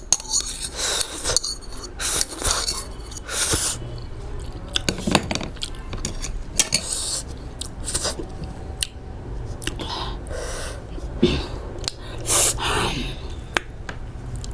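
Cutlery clinking and scraping against a plate while eating, in short irregular clicks and scrapes.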